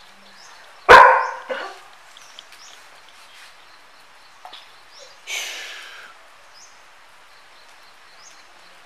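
German Shepherd barking: one loud bark about a second in, a shorter bark right after it, and a softer, hissier sound about five seconds in.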